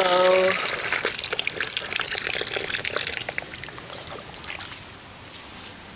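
Water from an outdoor spigot running and splashing over a plastic litter pan, with small drips and trickles; the flow drops to a fainter trickle about three seconds in.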